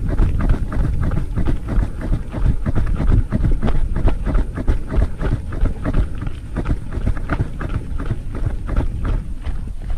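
Loose gravel crunching in a dense run of irregular crackles, with wind rumbling on the microphone.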